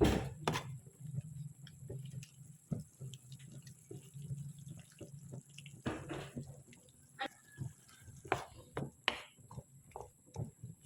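Kitchen sounds: water dripping and splashing, with scattered knocks and clinks, the loudest right at the start, over a low steady hum.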